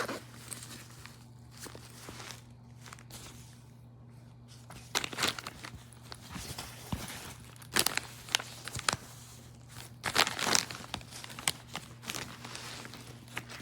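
Fabric of a diaper bag backpack rustling and crinkling as it is handled, with irregular scrapes and a few louder handling noises, over a faint steady low hum.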